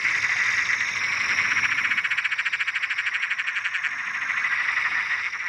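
A loud, steady animal trill made of rapid pulses, many a second, high in pitch.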